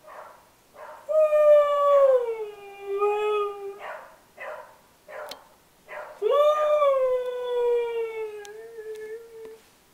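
Husky howling: two long howls, each starting higher and sliding down in pitch, with a few short yips before and between them.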